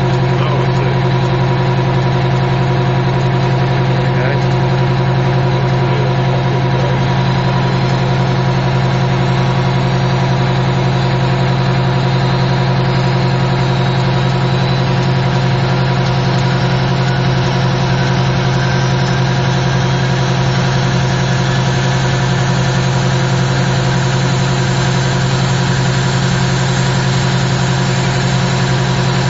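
Vickers Vanguard's Rolls-Royce Tyne turboprop engines running steadily at ground idle: a loud, even drone with a ladder of steady tones. A higher hiss and whine build up over the second half.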